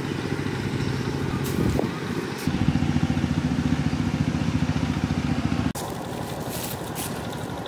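A small engine running with a fast, even pulse. It dips briefly about two seconds in, comes back louder, and stops suddenly near the end.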